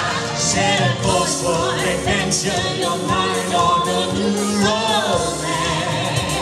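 A man and a woman singing together over instrumental accompaniment.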